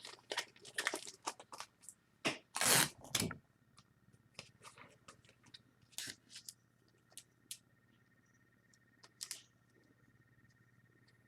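Handling of trading cards and their plastic holders: scattered rustles and clicks, with a louder rustling scrape about two to three seconds in, then only occasional clicks.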